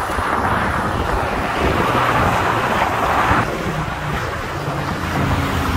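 Strong wind blowing across a phone's microphone, a steady rumbling hiss that eases a little about three and a half seconds in, with road traffic noise mixed in underneath.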